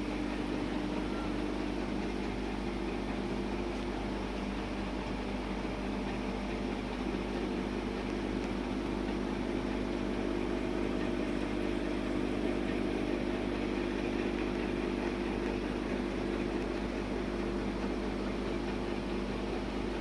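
Aquarium pump humming steadily, a constant low drone with a soft hiss of running water or air over it.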